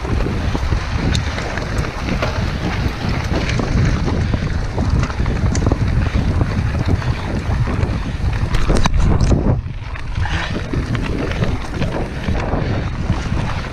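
Mountain bike rolling fast over a gravel forest track: wind buffeting the microphone, with a steady rumble of tyres and frame and frequent rattles and knocks from bumps. The sound changes about ten seconds in.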